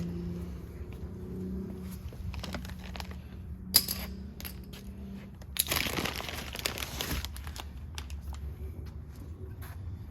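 Hands handling parts: crinkling and rustling with scattered clicks, a sharp click about four seconds in and a longer burst of rustling starting about six seconds in.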